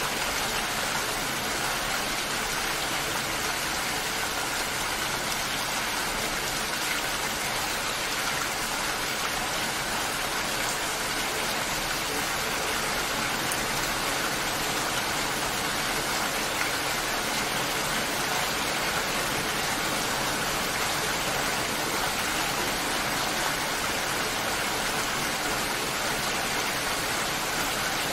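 Rain falling steadily, an even, unchanging hiss.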